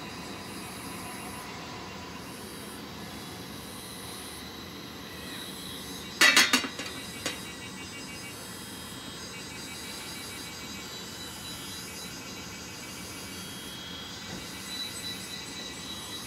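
Steady hissing background noise, broken about six seconds in by a quick clatter of sharp clicks, the loudest sound here, with a fainter click about a second later.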